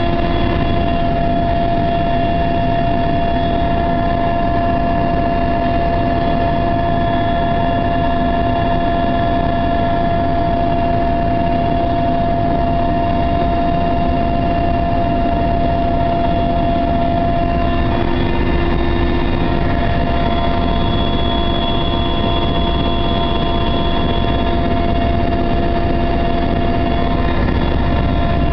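Russian-built transport helicopter in flight, heard from aboard: a loud, steady rotor and engine drone with a constant high whine running through it.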